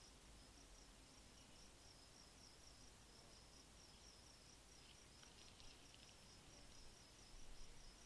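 Faint insect chirping, an even, steady series of high chirps, over a faint low hum.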